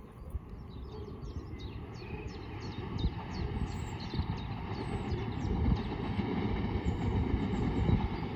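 RER C electric commuter train approaching, a low rumble growing steadily louder.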